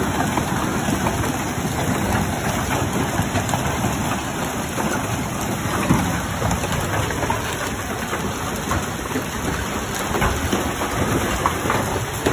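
Hailstorm: hail and heavy rain pelting down, a dense steady hiss scattered with many small ticks of hailstones striking the ground and cars.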